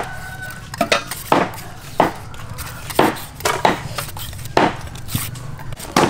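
Hand vegetable peelers scraping strips off raw carrots, one short scraping stroke about every half-second to second.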